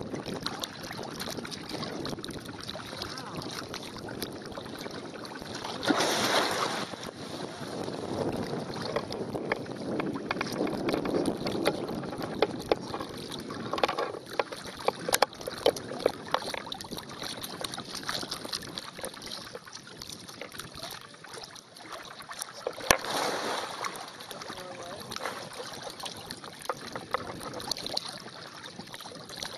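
Water sloshing and splashing around an elephant wading through swampy water, with wind buffeting the microphone and many scattered clicks and knocks. A louder rush comes about six seconds in, and a sharp knock a little before the twenty-three-second mark.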